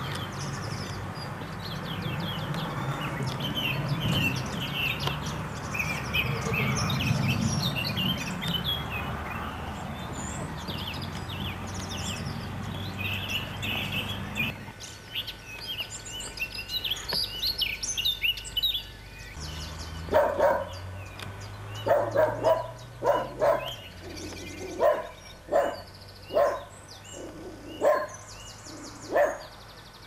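Birds chirping over a low rumbling background noise; about halfway through the sound changes abruptly, and from about two-thirds of the way in a dog barks repeatedly, roughly once a second, over a faint low steady hum.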